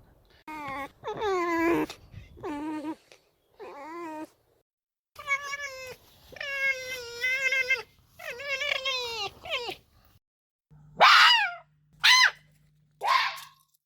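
Red fox calling: a string of about seven wavering, whining calls, some held for over a second, then three short, louder, harsh cries that drop in pitch near the end.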